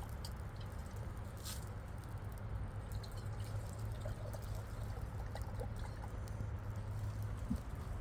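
Water trickling and dripping over a steady low rumble, with a few faint small ticks.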